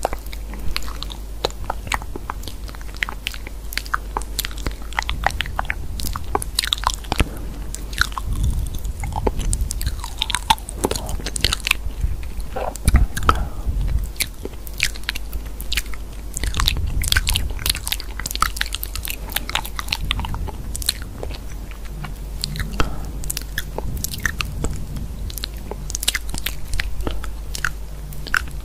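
Quick, irregular tapping clicks of typing on a phone's on-screen keyboard, over a steady low hum.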